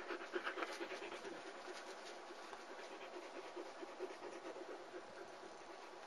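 German Shepherd puppy panting close by, in quick short breaths about four or five a second that fade after the first couple of seconds.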